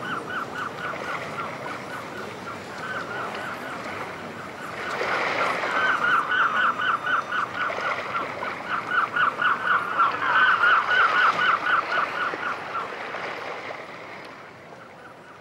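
Birds calling in fast trains of short, repeated honking notes. They grow louder about five seconds in and fade near the end.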